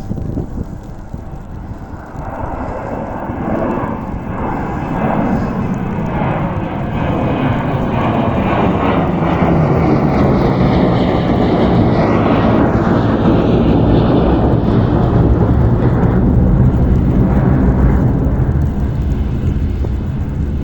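Airport snow-removal vehicles, plows and a spreader, pass close by. Their engines and blowers grow louder through the first half, with a whine that bends in pitch as they pass, then ease slightly near the end.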